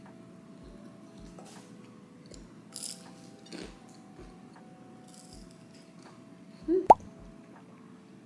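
Soft lo-fi background music with held chords and a light low beat, under crunchy bites and chewing of a bagel sandwich and crinkle-cut fries, with two crunches about three seconds in. Near the end, a short rising squeak ends in a sharp snap, the loudest sound here.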